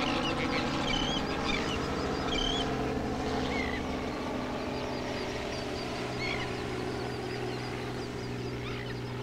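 Many birds calling in short, high chirps over the steady drone of a helicopter. The calls are thickest in the first three seconds, and the drone fades slowly.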